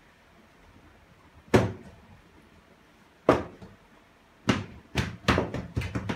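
Hollow knocks and bangs on a whiteboard panel. Two single knocks come first, then a quicker run of several from about two-thirds of the way in.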